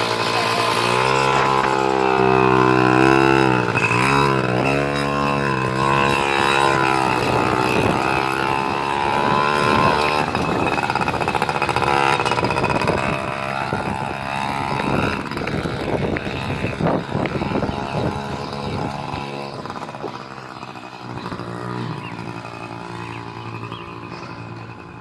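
Mini motorcycle engine running while being ridden, its pitch rising and falling with the throttle, then growing fainter near the end as it moves away.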